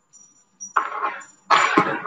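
A woman coughing: a short cough about three-quarters of a second in, then a stronger one near the end.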